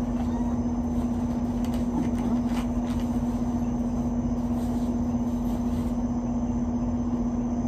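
Steady machine hum with one constant mid-low tone over a low rumble, from a running portable air conditioner. Faint rustles and small clicks come from cloth items and a fabric bag being handled.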